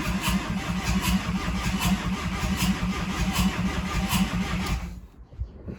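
Starter motor cranking a freshly rebuilt VW 1.9 TDI four-cylinder diesel, which turns over with an even, pulsing rhythm but does not fire. It is a cold first start with no glow plugs connected and no intake or exhaust manifolds fitted. The cranking stops abruptly about five seconds in.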